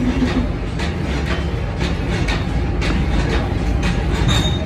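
Steady low rumble of factory machinery running, with scattered light metal clicks, about one or two a second, as a large spur gear is turned and seated by hand on a tractor rear axle half shaft.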